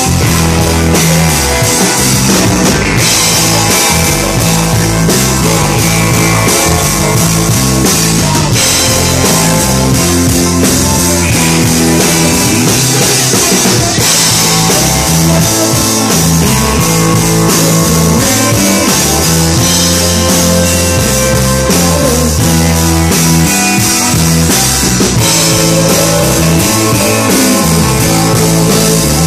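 Live rock band playing: Telecaster-style electric guitar over a drum kit, loud and unbroken.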